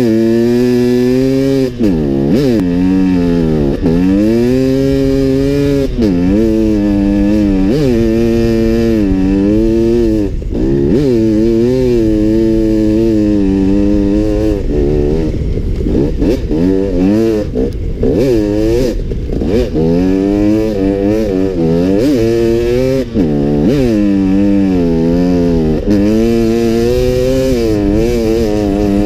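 Dirt bike engine ridden hard through deep snow, its revs climbing and dropping every second or two as the rider works the throttle and shifts.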